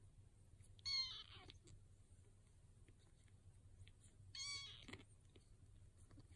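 Very young kitten mewing twice, about three and a half seconds apart. Each mew is short and high-pitched, about half a second long.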